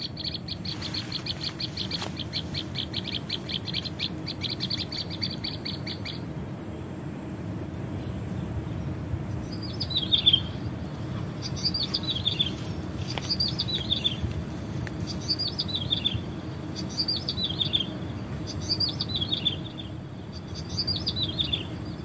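Recorded bird calls played from a bird-trapping MP3 lure speaker, meant to call in a prenjak tebu. First comes a fast trill of high repeated notes for about six seconds. After a short pause, short high notes that each drop in pitch repeat about every second and a half, over a steady low background noise.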